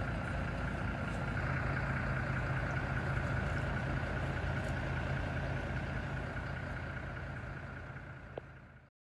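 Engine idling steadily, a low hum with a higher whine over it. It fades out over the last couple of seconds and cuts off abruptly, with a single small knock just before.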